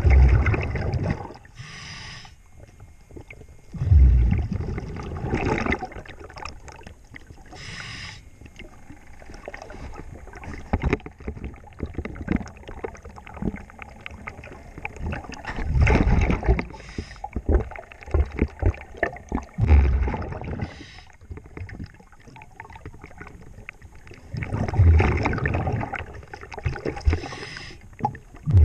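Diver's regulator breathing underwater: exhaled bubbles rumble out in loud surges every few seconds, with the short hiss of an inhalation between them, over a steady crackle of fine clicks.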